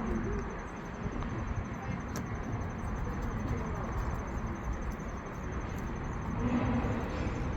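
Steady background noise of a busy rally: a low rumble with faint, indistinct voices mixed in.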